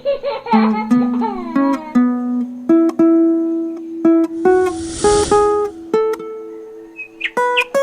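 Music on a plucked string instrument: single notes plucked one after another and left to ring, with some sliding pitches in the first second or so. About four and a half seconds in, a hissing burst of noise lasts for about a second and a half over the notes.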